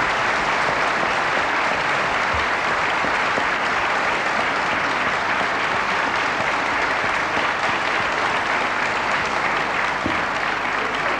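A large auditorium audience applauding steadily, a dense wash of many hands clapping at once.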